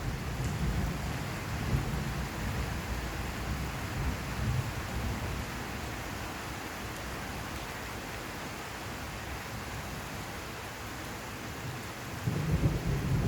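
Steady rain hissing, with a low rumble of thunder that dies away through the middle and builds again sharply near the end.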